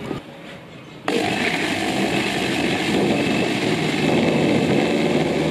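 Electric blender switched on about a second in, its motor then running steadily as it purees chopped pandan leaves.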